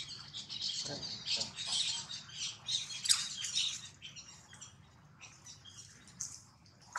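A flurry of short, high-pitched animal squeaks and chirps, busy for the first few seconds and thinning out after that.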